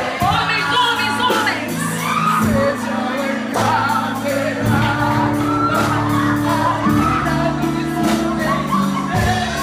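Live worship band playing: voices singing over acoustic guitar, electric guitar and drums.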